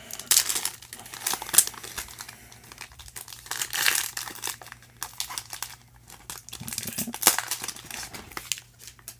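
Foil trading-card pack wrapper being torn open and crumpled by hand, crinkling in several bouts.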